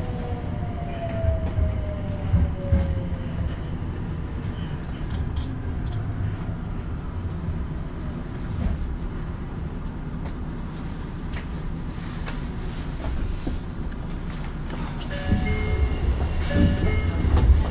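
Underground subway platform noise: a steady low rumble of rail traffic with scattered knocks. A falling electric whine fades out in the first few seconds. Near the end the rumble grows louder, with a few short electronic tones.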